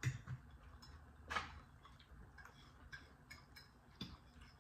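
Quiet, irregular clicks and light scrapes of metal forks and spoons against plates and a pan while people eat, with a sharper clink about a second and a half in.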